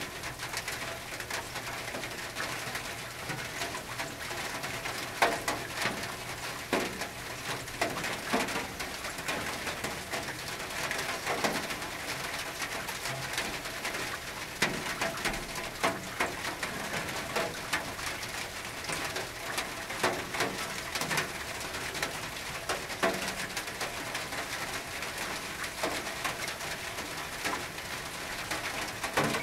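Rain on a tin roof: a steady hiss of rainfall with irregular louder drops knocking on the metal.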